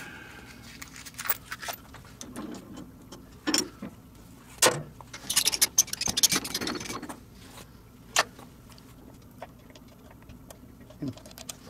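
Scattered metallic clicks and clinks of machine tooling being handled and fitted at a metal lathe, with a busy run of small clinks partway through. No motor is running.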